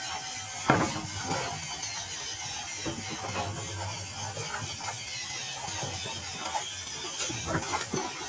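Toy RC pickup truck's small electric motor and plastic gearbox whirring with a ratcheting gear noise, with scattered knocks, the sharpest a little under a second in.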